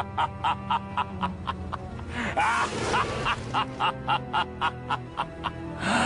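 Evil laugh sound effect: a villain's 'ha-ha-ha' laugh in quick rhythmic pulses, about three or four a second, briefly broken about two seconds in, over a steady low drone.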